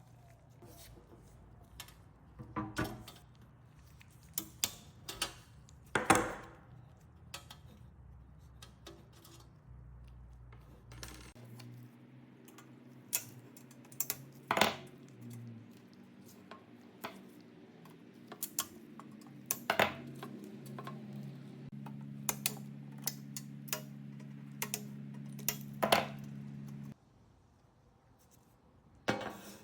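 Metal clinking and knocking, as of tools and small metal parts being handled and set down, in irregular strikes. A steady low hum joins about eleven seconds in and cuts off a few seconds before the end.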